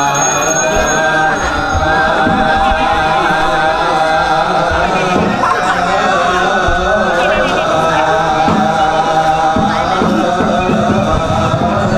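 Balinese gamelan playing loud, dense music, many pitched metal instruments sounding together without a break.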